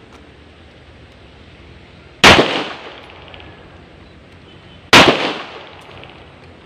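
Two 9 mm pistol shots from a Rock Island Armory Tac Ultra FS HC, about two and a half seconds apart, each a sharp crack followed by a reverberating tail.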